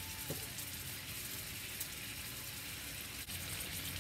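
A steak sizzling steadily in hot oil in a frying pan.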